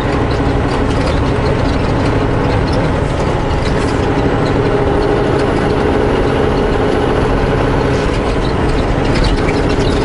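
Semi truck's diesel engine running at low speed, heard from inside the cab: a steady low drone with road noise.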